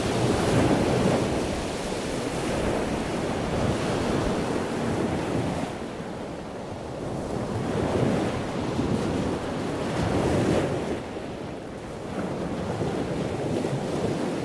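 Trade wind blowing over the microphone: a rushing noise that swells in gusts and eases every few seconds.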